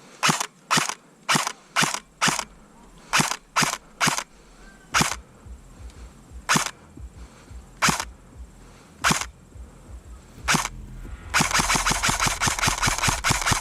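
Airsoft electric rifle (ASG M15 AEG) firing: about fifteen single shots, unevenly spaced, then a sustained full-auto burst in the last couple of seconds.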